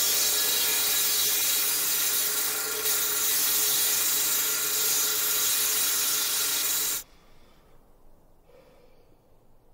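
Large circular saw blade cutting a log: a loud, steady hiss with a faint whine. It cuts off abruptly about seven seconds in.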